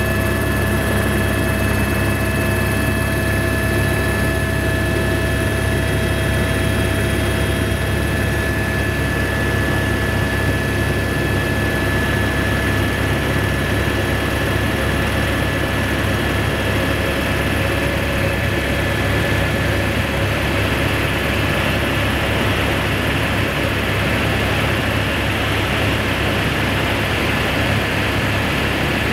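A helicopter's engine and rotor heard from inside the cabin in flight: a steady low drone with a high, even whine over it, and a rushing hiss that grows somewhat louder in the second half.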